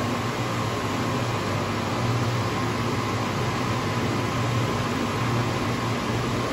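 Taylor 794 air-cooled soft serve machine running with a steady hum and fan noise.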